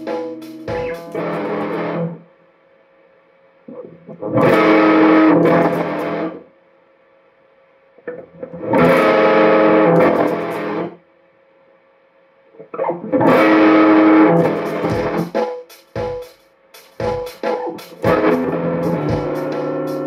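Electric guitar: chords struck and left ringing for about two seconds at a time, with pauses of about two seconds between them, then shorter, choppier chords in the last few seconds.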